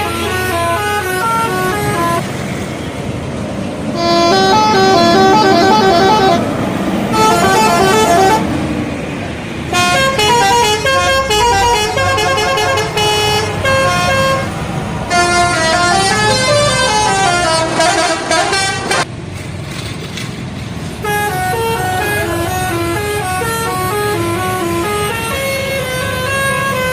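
Indonesian bus telolet horns: multi-tone electric horns playing quick, stepping melodic tunes, several runs one after another.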